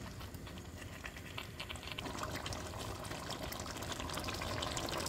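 Meat, onion, carrot and potato stew sizzling and bubbling in a kazan, cooking in its own juices with no water added. The sound grows a little louder about two seconds in.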